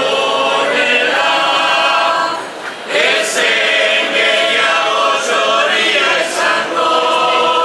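A choir singing in harmony, holding long chords, with a short break about two and a half seconds in before the voices come back in.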